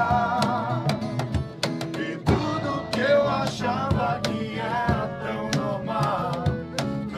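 A small acoustic band playing a song live: strummed acoustic guitars with percussion hits, and a man and a woman singing together.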